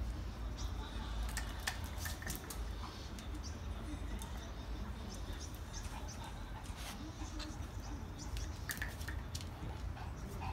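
Scattered light clicks and taps of a toy poodle's claws on a hard balcony floor, over a low steady rumble.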